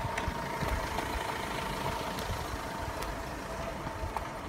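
Steady low rumble with a faint steady hum that fades near the end, like an engine running nearby.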